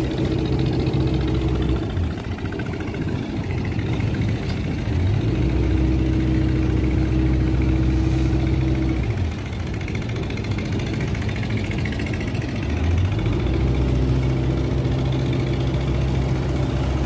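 Fishing boat's inboard engine running steadily. Its note drops away about two seconds in and again about halfway through, then picks up with a short rise in pitch around five seconds and again near thirteen seconds, as the throttle is eased and opened.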